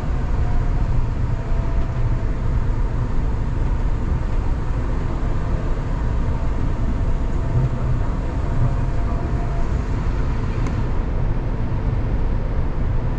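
Rubber-tyred automated guideway train of the Kanazawa Seaside Line running along its guideway: a steady low rumble with a faint whine above it, and one short click about two-thirds through.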